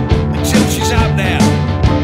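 Rock band track playing: a steady drum beat of about two strikes a second under held chords and a melody line that slides in pitch.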